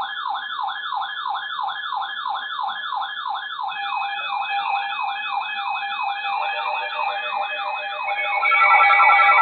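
Siren in a rapid yelp, its pitch sweeping up and down about four times a second. Steady high tones join about four seconds in, and louder music comes in near the end.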